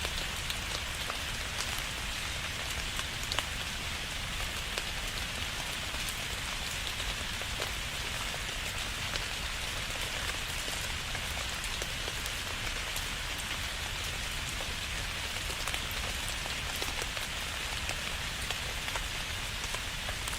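Steady rain falling, an even hiss with many individual drops pattering on a surface.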